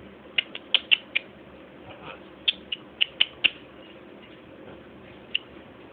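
A pet bird giving short, high chirps or squeaks, in two quick runs of about five each and one more near the end.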